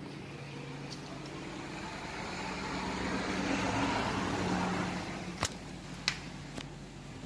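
A passing road vehicle swells up and fades away over a steady low hum, with two sharp clicks near the end.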